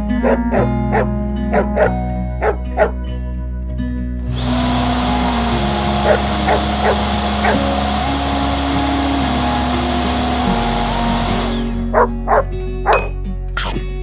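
A puppy barking in a few short yaps over light plucked background music. From about four seconds in until near the end, a steady rushing noise with a steady high whine covers the mix.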